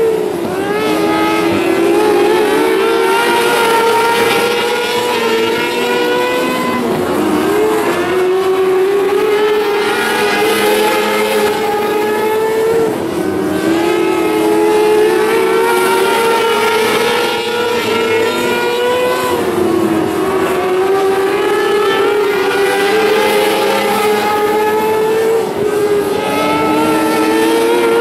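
Several 600cc micro sprint cars racing, their high-revving four-cylinder motorcycle engines overlapping and rising and falling in pitch every few seconds as the cars lift and accelerate through the turns.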